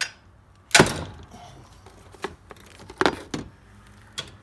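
Hammer striking a large wrench on a Ram 1500 5.7 Hemi's clutch fan nut, metal on metal, to break the nut loose clockwise, since it is reverse-threaded. About four separate blows: the heaviest about a second in, a lighter one a little before the two close together near three seconds.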